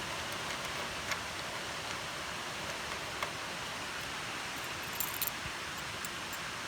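TIG welding arc from a hitbox TIG200PACDC welder, giving a steady even hiss with a few faint crackling ticks, the clearest about a second in, around three seconds in, and a small cluster past five seconds.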